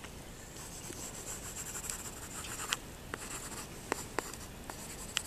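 Stylus scratching across the screen of a handheld delivery scanner as a signature is written, with a few faint ticks.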